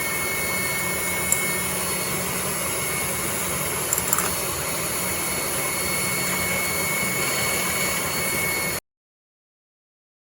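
Electric mixer running at a steady speed, whipping egg whites into meringue, with a steady motor whine and a few light clicks about a second in and again about four seconds in. The sound cuts off abruptly near the end.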